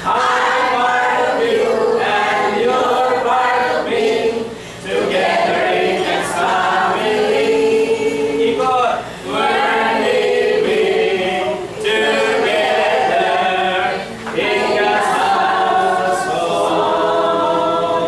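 A group of older men and women singing a song together, in phrases broken by short pauses.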